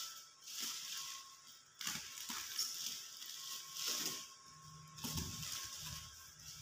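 Plastic bubble-wrap packaging rustling and crinkling in a series of short bursts as it is handled and pulled open.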